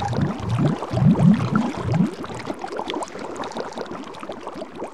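Water splashing and bubbling, with gurgling for about the first two seconds, then thinning into a fainter fizz of small bubbles.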